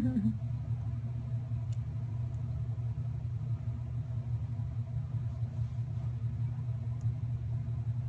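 Steady low hum with no clear sound standing out above it.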